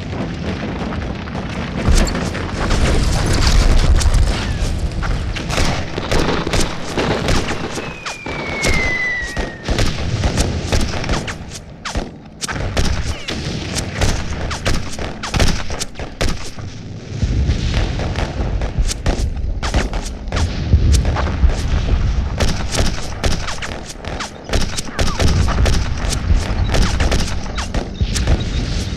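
Battle sound effects: dense, rapid gunfire crackling over repeated low explosion booms, with a short falling whistle about a third of the way through.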